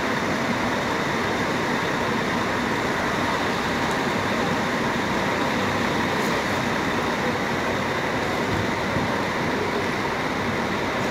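Double-decker long-distance coach moving slowly at low speed: a steady engine and road noise that keeps an even level throughout.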